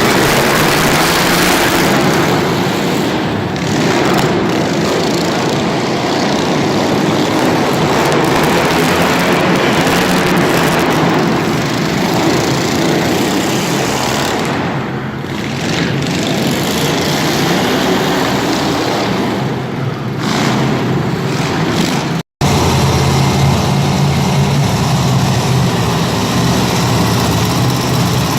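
Monster truck engine running loud and revving. It cuts out for an instant a little after 22 seconds in, then comes back as a steadier, lower engine note.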